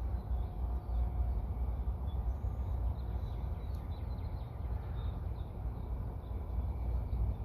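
Wind buffeting the microphone, a fluctuating low rumble, with a few faint bird chirps above it.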